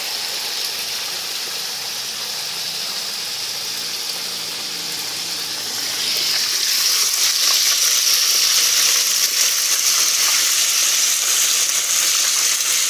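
Fish deep-frying in cooking oil in a wok over a charcoal fire: a steady sizzle that gets louder about six seconds in.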